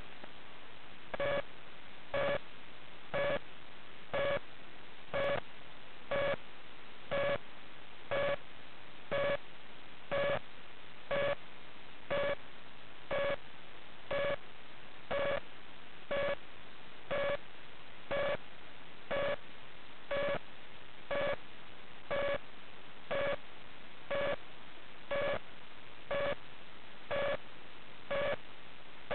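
A short electronic beep repeating evenly, about once a second, over a steady hiss.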